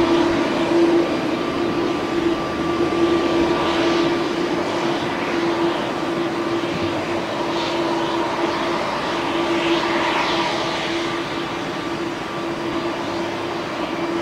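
Boeing 747-8i's four GEnx-2B turbofan engines running at taxi power: a steady jet hum with a held mid-pitched tone over a wash of engine noise, swelling gently now and then.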